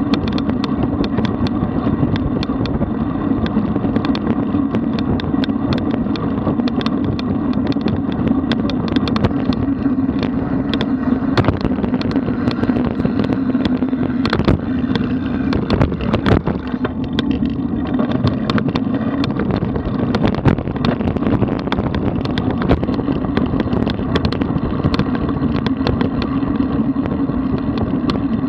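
Steady noise of riding a road bicycle, as heard from a camera mounted on the bike: wind on the microphone and a rumble from tyres on the road, with frequent sharp clicks and knocks.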